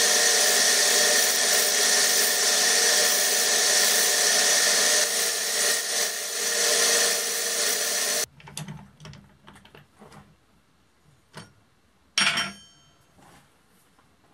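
Wood lathe spinning while a hand-held chisel cuts into the turning wooden piece: a loud, steady scraping hiss over the motor's whine. It stops abruptly about eight seconds in. Light knocks and one sharp metallic click follow as the piece is handled on the stopped lathe.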